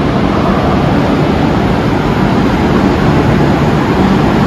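Comeng electric multiple-unit train pulling into the platform, a loud steady rumble of wheels on rails and traction motors with a low hum underneath.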